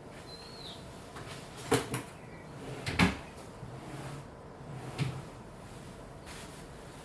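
A few sharp knocks and clunks, like something being handled or a cupboard door, the loudest about three seconds in and a last one near five seconds. A single short bird chirp sounds just before the knocks.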